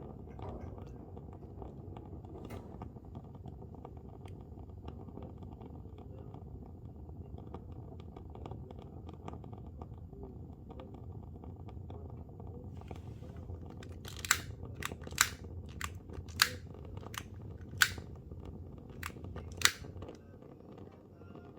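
A steady low rumble, with a run of about eight sharp clicks spaced about a second apart in the last third.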